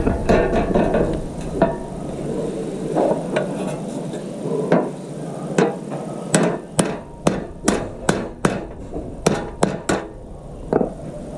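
A series of sharp knocks, about two to three a second, through the second half.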